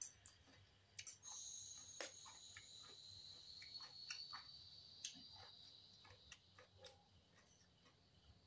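Faint scattered clicks and taps of a metal spoon and fork against a plastic tray as papaya salad is mixed and scooped, with soft chewing. A faint steady high-pitched whine runs from about a second in until about six seconds in.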